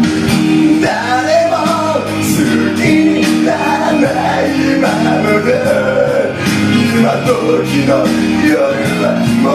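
A man singing a Japanese pop ballad into a handheld microphone over a loud recorded backing track with guitar. His voice comes in about a second in.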